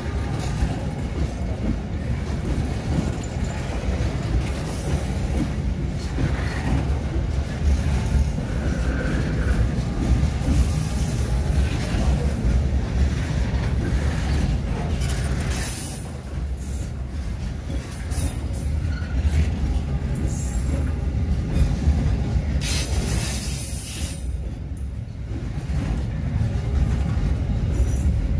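A freight train of loaded container flatcars rolls past on a sharp curve, its wheels keeping up a steady heavy rumble on the rails. Several times the wheels break into short bursts of high-pitched squeal as they take the curve.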